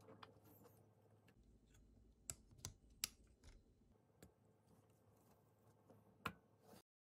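Faint, scattered plastic clicks and taps as LEGO tyres are pressed onto the axles of a brick-built McLaren F1 car and the model is handled, the sharpest about three seconds in and again near the end.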